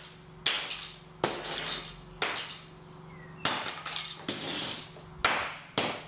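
Steel golf club iron repeatedly smashing the plastic and circuit-board remains of an alarm clock on a concrete floor: about seven sharp hits, roughly a second apart, each with a short decaying tail.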